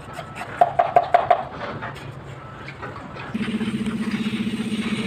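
Steel tamping rod compacting fresh concrete in steel cube moulds: a quick run of about six ringing metal knocks, then softer clatter. A little past halfway a steady, evenly pulsing engine-like hum starts and continues.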